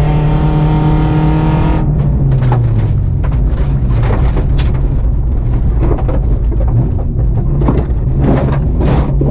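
BMW 318is four-cylinder engine heard from inside the rally car, held at steady high revs and then easing off to lower revs about two seconds in. From then on, loose gravel and stones clatter and knock against the underbody.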